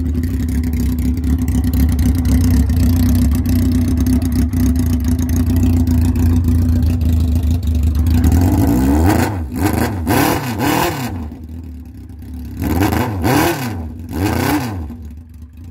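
1980 Honda CB750 Custom's air-cooled inline-four idling steadily through a freshly fitted, wrapped 4-into-1 header with no muffler tip on. About nine seconds in the throttle is blipped in a run of several quick revs up and down, it drops back, then a few more blips follow near the end.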